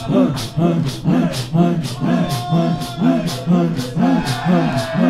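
Congregation beating their chests in unison (matam) to the lament, about two strokes a second, with a short voiced sound from the crowd on each stroke. A single man's voice holds a sung note over the rhythm partway through.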